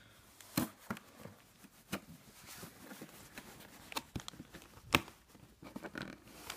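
Handling of a cardboard toy box: a few scattered light knocks and scrapes, the sharpest about five seconds in.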